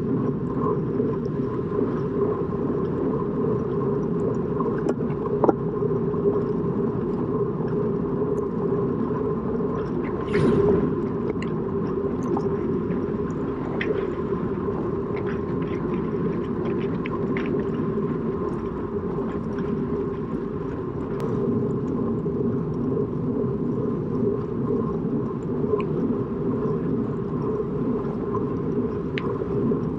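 Steady rumble of wind and road noise while riding in a road bicycle race, with a faint steady whine, scattered light clicks and a brief louder rush about ten seconds in.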